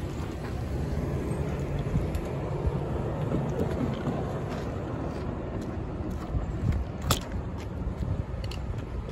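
Steady low rumble of vehicles, with a sharp click about seven seconds in.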